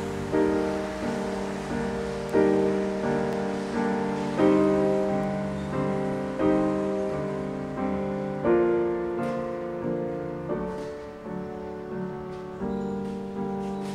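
Piano music: repeated notes and chords, each ringing and fading, with a stronger chord struck about every two seconds.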